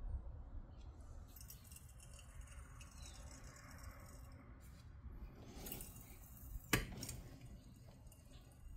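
Tools and metal parts being handled during car suspension work: light scraping and small clinks, with one sharp metallic click about two-thirds of the way through.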